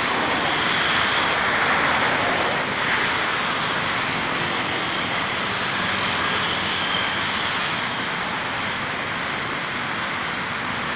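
Steady outdoor rushing noise, of the kind passing traffic makes, swelling slightly over the first few seconds and then holding level.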